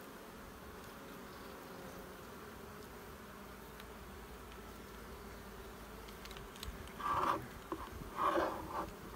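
Honey bees humming steadily around an open hive, with the faint scratching of a hive tool scraping the cappings of old honey in a comb frame so the bees will clean it out. Two louder sounds come near the end, about a second apart.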